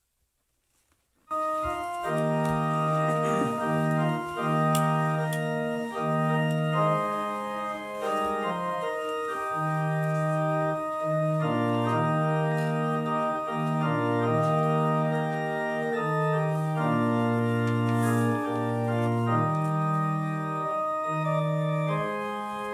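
Organ playing a hymn tune in held, sustained chords, coming in about a second in.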